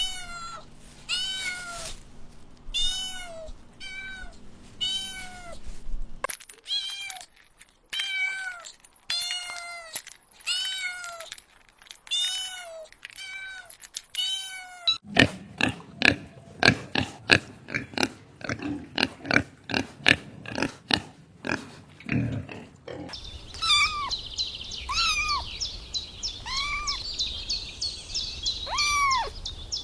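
Kittens meowing over and over in short, high-pitched mews about a second apart. The background changes abruptly several times, as separate recordings are spliced together.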